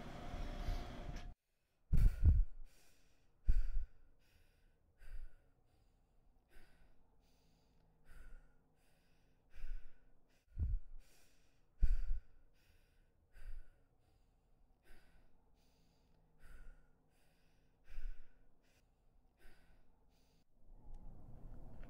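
Slow, heavy breathing, one deep breath about every one and a half seconds, after a moment of room noise that cuts off abruptly.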